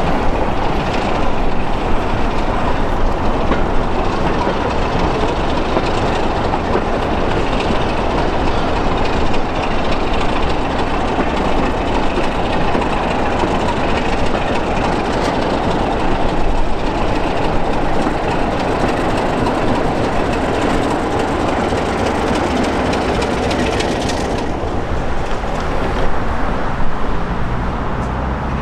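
Diesel locomotive with a Sulzer engine hauling a rake of coaches past, the engine running and the wheels clattering over the rail joints. The higher hiss drops away sharply about 24 seconds in.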